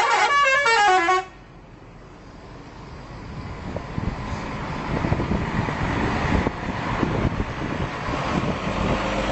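Bus telolet horn, a set of musical air horns, playing the end of its tune as a quick run of falling notes. It cuts off about a second in, followed by a low rumble that grows steadily louder.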